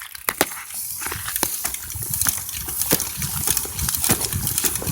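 Irregular clicks and rattles from a bicycle's chain and moving parts being worked after a soaking in penetrating spray, over a steady hiss.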